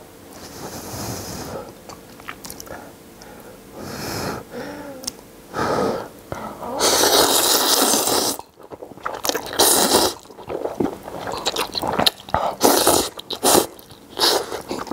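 Close-up mouth sounds of a man eating soupy instant ramen noodles. There is one long, loud slurp of noodles lasting over a second, about seven seconds in, with shorter, quieter slurps before it. Wet chewing clicks and smacks follow.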